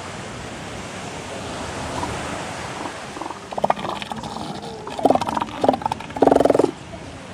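Pinnipeds calling over steady surf: four short, deep, pulsing calls in the second half, the last and loudest about half a second long.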